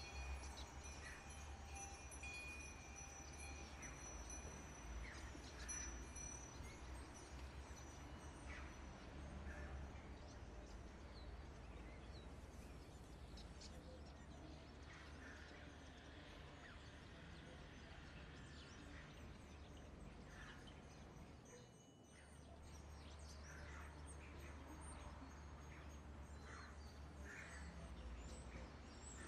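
Near silence: faint steady background noise with a low hum and a few scattered faint chirps. The hum drops out briefly about twenty-two seconds in.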